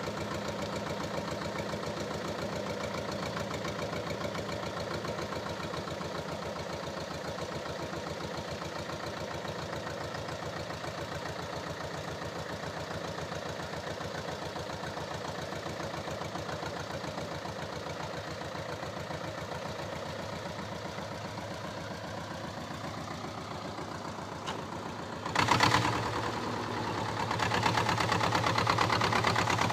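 Same 250 tractor's diesel engine running steadily at low revs with an even beat, then revving up sharply about 25 seconds in and running louder near the end.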